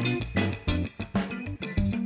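Background music led by guitar over bass, with a steady beat.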